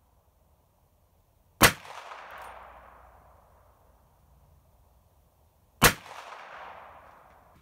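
Two shots from a Ruger Wrangler .22 LR single-action revolver, about four seconds apart, each followed by an echo that dies away over about two seconds.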